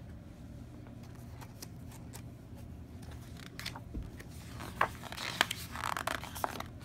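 Glossy pages of a large picture book being smoothed and turned by hand: paper rustling and crackling, with several sharp clicks, busiest in the second half.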